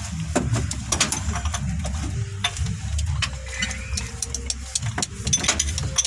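Carbureted inline engine running rough with its valve cover off: a steady low rumble with irregular clicking from the exposed valve gear, from an engine with a misfire.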